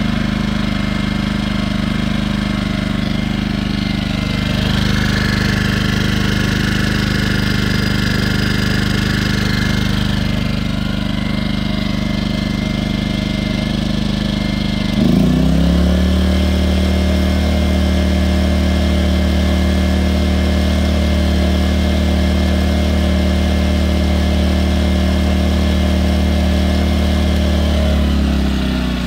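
Firman W01785 inverter generator's engine running steadily. About halfway through, the engine speed changes and settles at a new steady pitch, and it changes again near the end.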